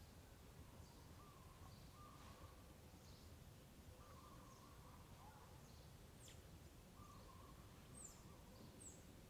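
Faint outdoor ambience: distant birds calling, with short wavering calls recurring every second or so and a couple of sharp high chirps near the end, over a low rumble.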